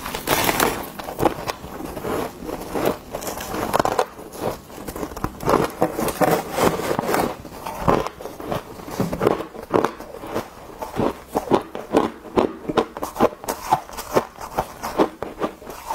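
Close-miked crunching as a block of refrozen freezer frost is bitten and chewed, the ice crystals crackling. It settles into steady chewing at about two to three crunches a second near the end.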